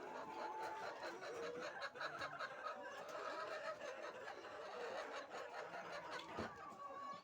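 Flock of laying hens clucking and chattering, many short calls overlapping. A single knock about six and a half seconds in.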